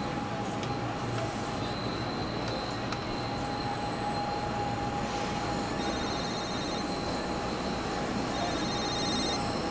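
Steady interior noise of a SEPTA Regional Rail passenger car: a low rumble and hiss with a constant mid-pitched whine. Thin high squealing tones come in twice in the second half.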